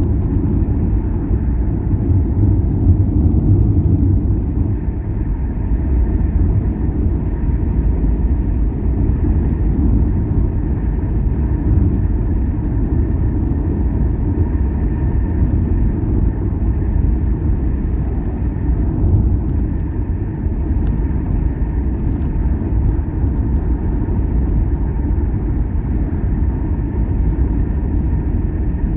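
Steady low road-and-engine rumble of a car driving along a highway, heard from inside the vehicle, with no sharp events.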